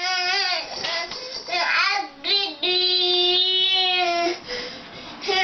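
Toddler crying and wailing in a tantrum, with a long, steady wail held for nearly two seconds in the middle.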